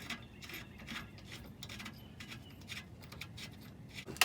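Faint, irregular light metal clicks and scrapes of strut bolts being fitted back in by hand.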